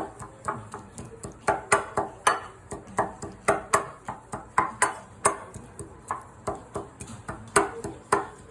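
Repeated sharp knocks of a kitchen utensil, each with a short ring, about three a second and unevenly spaced, as in chopping or pounding while preparing food.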